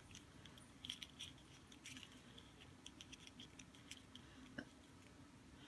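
Near silence, broken by a few faint, light clicks and taps from a small plastic toy figure being handled.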